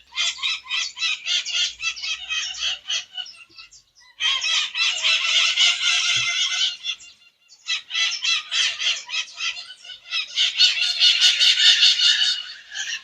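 Many small birds chirping rapidly and densely together, in three bursts of a few seconds each with short pauses between.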